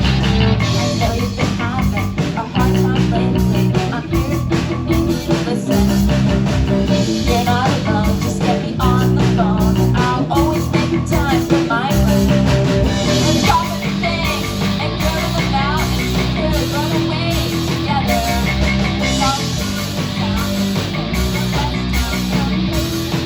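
Rock band playing live, loud, with electric guitar to the fore.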